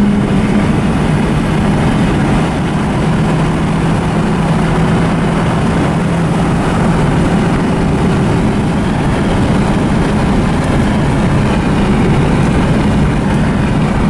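Ford Escort ZX2's four-cylinder engine running on its stock exhaust at highway speed, heard from inside the cabin over loud road and wind noise. The engine drone holds a steady pitch, dipping slightly near the start.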